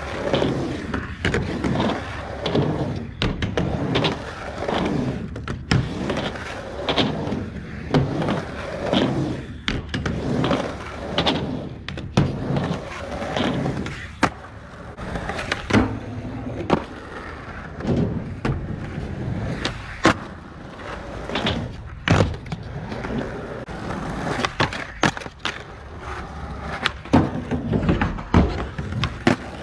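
Skateboard wheels rolling on concrete, broken again and again by sharp clacks of the board popping and landing on ramps. Near the end the board grinds along a skate ledge.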